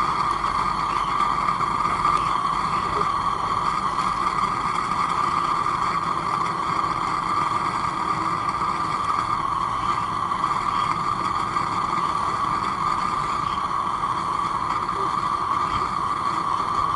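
Homemade propane burner running with a steady, even rushing noise under a saucepan of heating sodium silicate.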